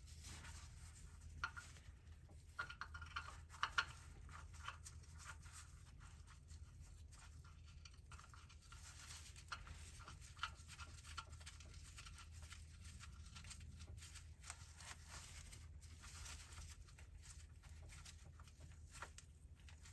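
Faint small clicks and scrapes of a gloved hand threading a sensor into a cast oil filter housing, with a few sharper ticks about 1.5 s and 4 s in, over a faint steady low hum.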